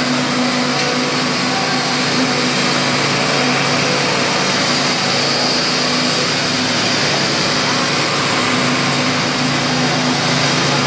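Steady, loud drone of construction machinery during a concrete pour: a constant low hum over a hissing wash of noise.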